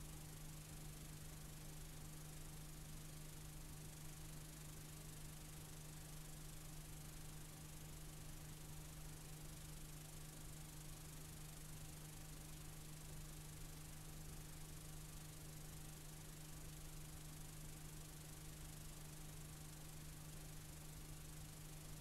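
Faint, steady hiss with a low, constant hum: the noise of a blank stretch of videotape being played back.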